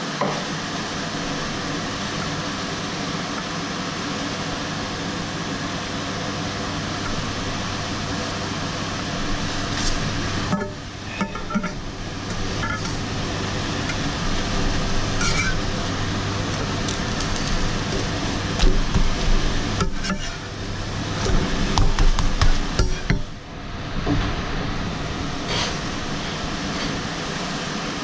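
A crepe frying in a pan on a gas hob, with a steady hiss. In the middle stretch, a slotted metal spatula scrapes and taps against the pan as the crepe is folded, making a series of clicks and knocks.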